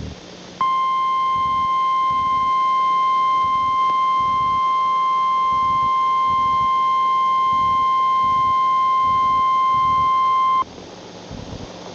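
Emergency Alert System attention signal: the single steady 1050 Hz weather-alert tone, held for about ten seconds and cutting off abruptly, announcing a tornado warning.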